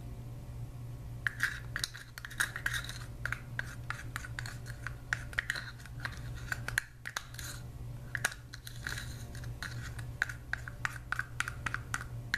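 A plastic spoon scraping and clicking against the inside of a small plastic measuring cup, scooping out thick jelly mixture. It comes as a quick, irregular run of scrapes and ticks starting about a second in.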